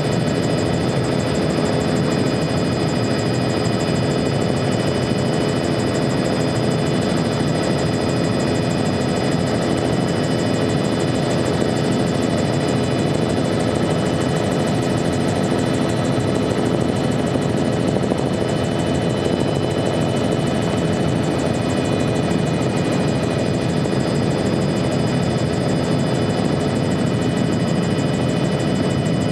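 Helicopter in flight, heard from aboard: a steady, unchanging engine and rotor noise with several steady high whines layered over it.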